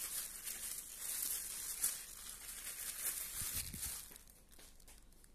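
A hand in a thin plastic glove kneading moist grated cassava mixture in a stainless steel bowl: irregular rustling of the glove and squishing of the mix, with a few soft knocks, dying down about four seconds in.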